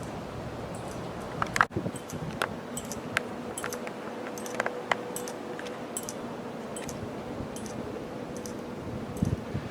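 Hampton Bay Irondale ceiling fan running, with a steady airy whoosh and a faint motor hum. Irregular light ticks and clicks run throughout, with a louder burst of clicks about one and a half seconds in and another near the end.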